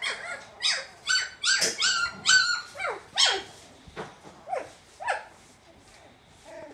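23-day-old wire-haired fox terrier puppies yipping and squealing as they play-wrestle: a rapid run of short, high-pitched yips, many falling in pitch, then a few fainter ones after about three and a half seconds.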